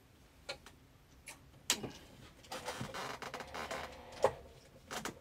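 Scattered clicks and taps of handling at a sewing machine while the work is set up for stitching, the loudest a little under two seconds in and just after four seconds, with a faint steady hum from about halfway.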